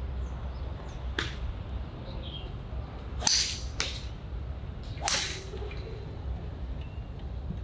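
Golf clubs striking balls on a driving range: four sharp cracks, about a second in, twice close together near the middle, and once more past the middle, the second and fourth the loudest. Faint bird chirps in the background.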